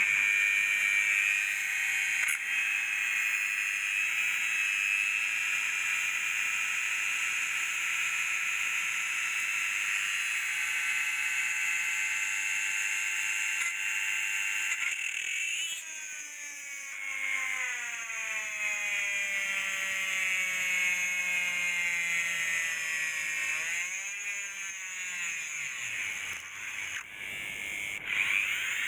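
Electric motor whining at a steady speed, then slowing with a falling pitch about halfway through and spinning back up with a rising pitch near the end.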